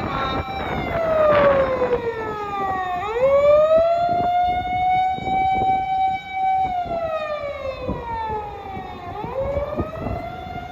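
Older-style wailing siren on a fire department personnel transport vehicle running with lights and siren. The tone holds high, slides slowly down over about two and a half seconds, then swings back up and holds. It does this twice, over the noise of traffic.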